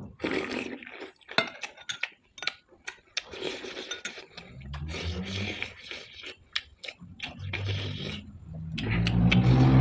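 A metal spoon clinks and scrapes against a plate of fried rice in many short, sharp taps. About halfway through, a low hum comes in and grows louder near the end.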